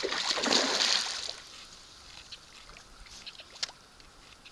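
Water splashing and sloshing at the surface beside a canoe for about a second, then dying away to faint trickles and drips.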